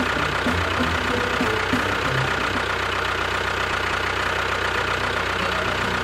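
A motor running steadily with an engine-like rumble.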